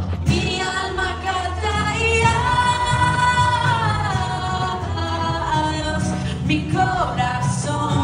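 Live worship band: women singing together in long held notes, backed by keyboard and guitars.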